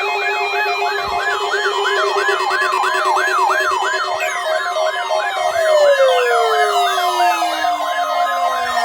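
Several weather radio receivers sounding their alert sirens at once: a rapid warbling siren that sweeps up and down about three times a second, over a steady alert tone. From about four seconds in, falling whistle-like sweeps pile on top, the sign of more receivers activating late.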